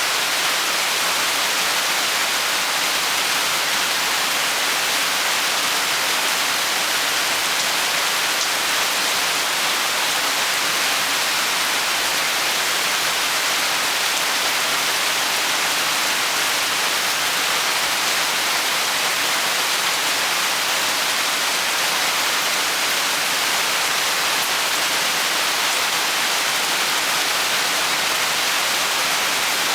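Steady rain falling, an even hiss that keeps the same level throughout with no distinct drops, thunder or other events.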